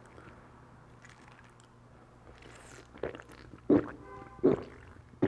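A person gulping down a cold drink: loud swallows about three seconds in, repeating roughly every 0.7 s.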